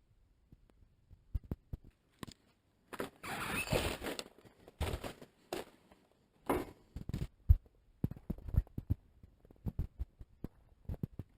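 Footsteps on a debris-strewn floor, a series of uneven dull thuds, with a scraping, rustling noise for about a second and a half a few seconds in and a shorter one a little later.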